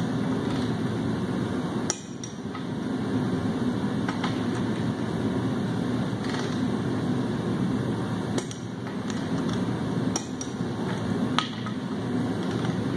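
Snap-on split-beam torque wrench giving several sharp clicks a few seconds apart as the main bearing cap bolts on a 7.3 Powerstroke block are pulled to torque. Each click is the wrench breaking at its set torque. A steady shop hum runs underneath.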